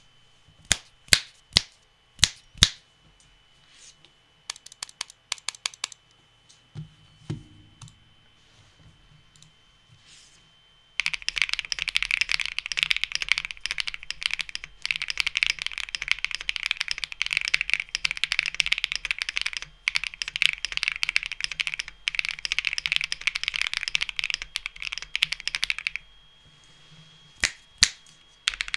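Keybay.tech W70 mechanical keyboard with HMX Xinhai switches and PBT keycaps being typed on. It begins with a few loud single keystrokes and a short quick run, then about fifteen seconds of fast continuous typing with brief pauses, and two more single strokes near the end.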